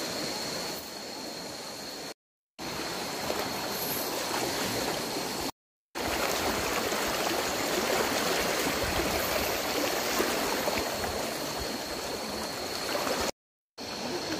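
Shallow river rushing steadily over its bed, broken by three brief dead-silent gaps. A faint steady high whine sits over the water and stops about five seconds in.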